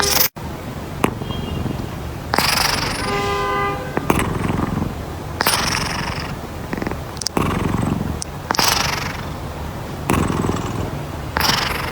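Domestic cat snoring loudly in its sleep: four long breathy snores about three seconds apart. A brief steady pitched tone sounds about three seconds in.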